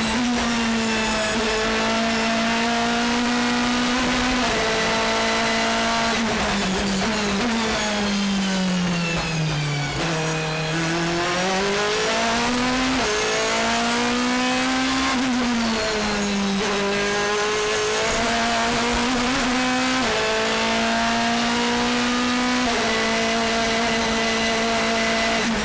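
BMW M3 DTM race car's 4.0-litre V8 at racing speed, heard onboard. The engine holds high revs, with sudden steps in pitch at gear changes. Its pitch sinks about eight to ten seconds in as it slows for a corner, then rises again as it accelerates out.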